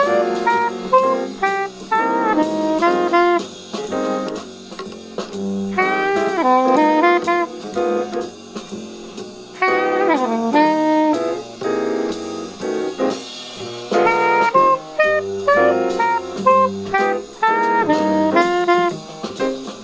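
Jazz band playing a swing tune: a saxophone plays a busy melodic solo of short notes over a moving bass line, sliding down in pitch about ten seconds in.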